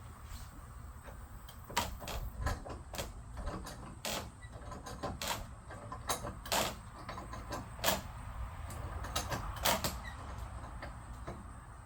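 A series of irregular sharp clicks and knocks, some close together, most of them between about two and ten seconds in, over a low steady rumble.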